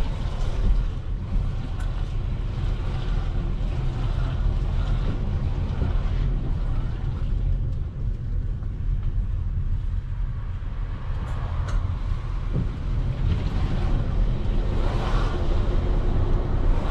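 A road vehicle on the move through city traffic: a steady low rumble of engine and road noise.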